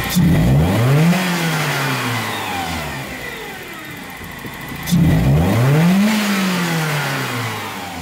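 BMW M42 1.8-litre four-cylinder engine revved twice, at the start and about five seconds in; each time the revs climb for about a second, then slowly fall back toward idle. The blips are part of a fuel pressure check on an engine that runs lean under load.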